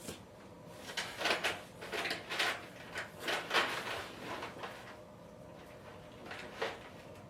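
Irregular rustling, scraping and light knocks of parts and costume being handled during animatronic assembly, bunched in the first half, with one last scrape near the end.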